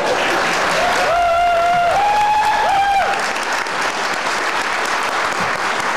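Audience applauding, with a high, drawn-out call over the clapping from about one second in that steps up in pitch and breaks off about three seconds in.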